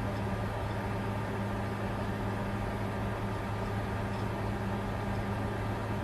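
Bitcoin mining computer running under load: a steady rush of cooling fans over a constant low hum.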